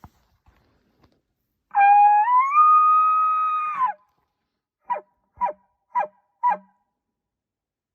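A woman imitating a bull elk's bugle with her voice alone, no reed call: a loud, whistling note that steps up in pitch and holds for about two seconds before dropping off, then four short grunting chuckles about half a second apart.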